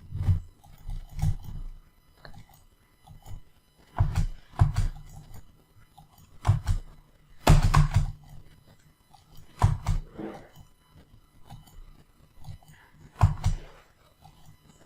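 Computer keyboard tapping in short scattered bursts of clicks and thuds, with pauses between them.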